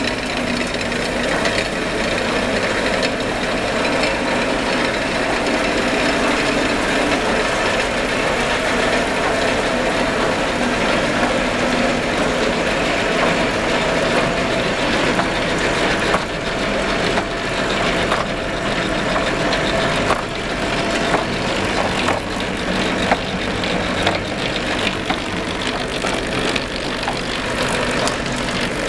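Industrial rotary board cutter line (Kolbus PK and Mansfeld) running: a steady, dense mechanical clatter of motors, shafts and rotary knives, with scattered sharp knocks in the second half as board sheets feed through.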